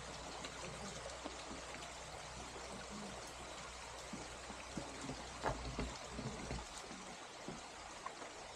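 Steady rush of a stream running over rocks, with a few light knocks about halfway through.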